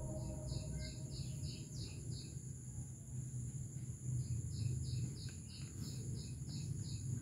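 Outdoor ambience: a small bird gives two runs of rapid, evenly spaced high chirps, about four a second, over a steady high insect drone and a low steady hum.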